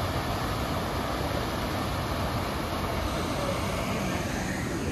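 White water of the Kivach waterfall rushing down its rock cascade: a steady, even rush without breaks.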